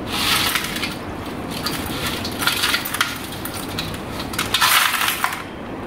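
Crunching, scraping and clinking of calcium scale against a water heater's metal parts as they are handled, in several short bursts. The scale has built up on the heating element and copper tubes and stopped the water heating properly.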